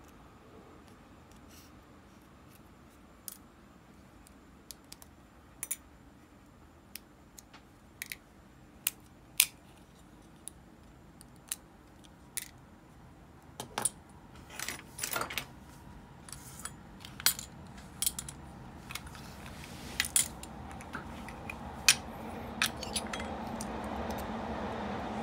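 Small metal parts of an Ambassadeur 5500C baitcasting reel clicking and clinking as the reel is taken apart by hand and the pieces are set into metal parts dishes. The sharp ticks come singly at first and grow more frequent about halfway through, with a brief flurry a little after that. A low background hum rises near the end.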